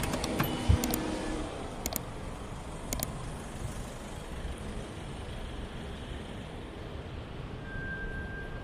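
Steady road traffic noise of a city street, with a few sharp clicks in the first three seconds.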